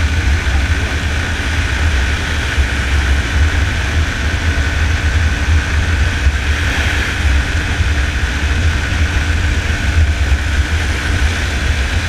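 Yamaha Fazer 250's single-cylinder engine running steadily while riding at speed, under heavy wind rumble on the microphone.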